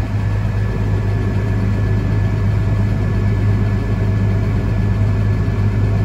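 Farm tractor's engine running steadily, heard from inside the cab, while it drives the grain cart's unloading auger to empty corn into a truck.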